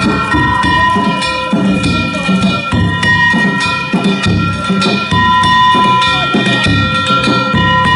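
Danjiri hayashi: the float's taiko drum and kane gongs beaten in a steady rhythm, with the gongs ringing over the drumbeats.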